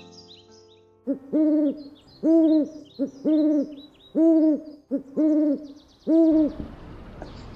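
A bird's low hooting call, repeated about six times roughly once a second, each a short note running into a longer arched one, with smaller birds chirping faintly higher up. Near the end a steady rushing hiss takes over.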